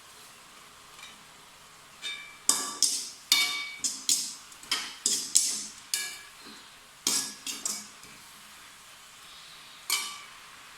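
Metal kitchen utensils clinking against a cooking pan or dish: a quick run of about a dozen ringing strikes starting about two seconds in and lasting some six seconds, then a single strike near the end.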